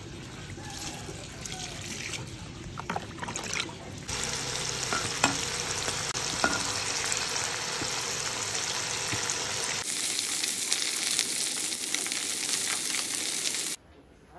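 Whole green chillies, shallots, garlic and tomato halves sizzling in hot oil in a pan, stirred with a metal spatula that scrapes and clicks against it. The sizzle starts abruptly about four seconds in, after a quieter stretch with a few clicks, changes texture near ten seconds and cuts off shortly before the end.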